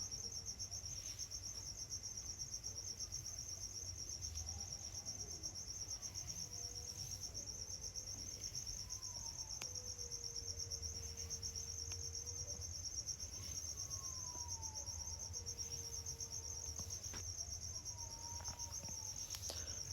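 Crickets chirring steadily in a high, continuous, rapidly pulsing trill, with a few faint clicks now and then.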